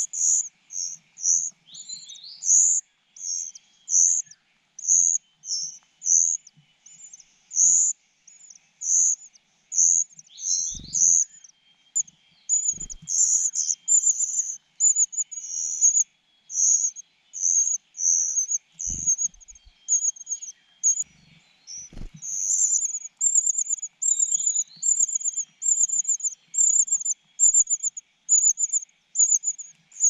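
Nestlings begging for food, a young cuckoo among them: short, thin, high-pitched calls repeated about one or two a second, coming faster and more continuously in the second half. A few soft low thumps are heard along the way.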